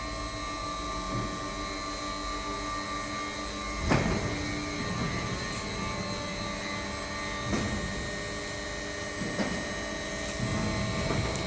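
Corrugated-carton flexo printing machine with its semi-automatic front feeder running: a steady mechanical hum with several steady tones, broken by a few short knocks, the loudest about four seconds in.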